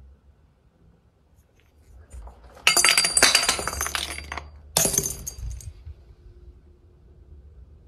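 A hand grenade clattering and rattling as it falls down a pipe inside a concrete wall, then a second, shorter clatter about five seconds in as it tumbles out onto gravel.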